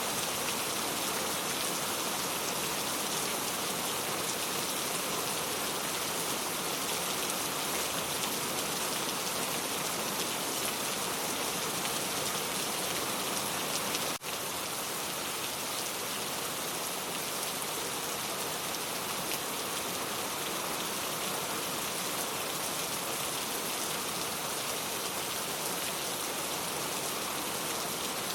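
Steady rain falling, an even hiss of many drops, with a momentary drop-out about halfway through.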